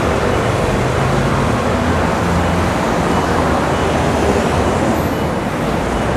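Steady road traffic noise mixed with rushing wind on the microphone, heard while riding a U-bike rental bicycle along a main road.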